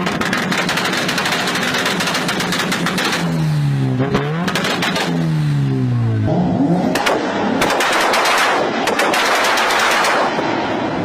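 High-performance car engine revving hard up and down several times, with rapid crackling pops from the exhaust throughout.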